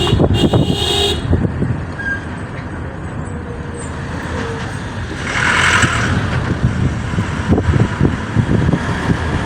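Motor vehicle running with steady road rumble, a horn tooting briefly at the start and a short rushing burst about five seconds in.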